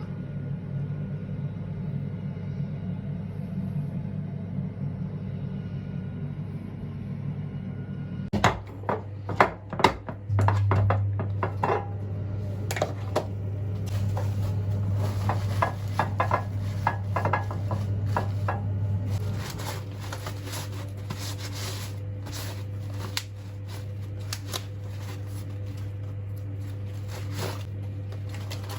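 Dishes and cutlery clinking and knocking, a rapid run of clatter starting about eight seconds in and thinning out later, over a steady low hum.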